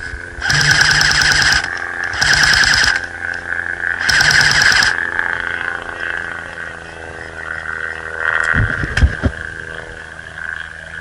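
Three bursts of full-auto fire from an airsoft electric gun, a rapid rattle of shots, each burst about a second long, coming within about five seconds. A steady high-pitched chirring drone runs underneath, and there are a few dull thumps near the end.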